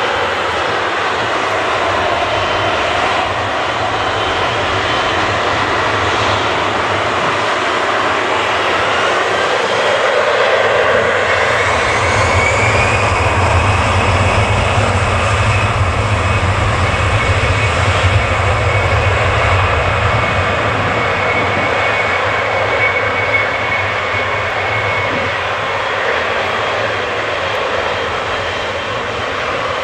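Boeing 777's twin jet engines running on the ground, a steady whine over a deep rumble. About eleven seconds in the whine rises in pitch and then holds.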